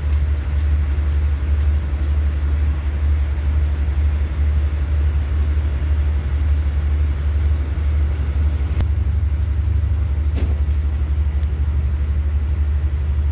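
Steady low rumble of a stationary diesel passenger train idling at the platform, with a light click or two near the end.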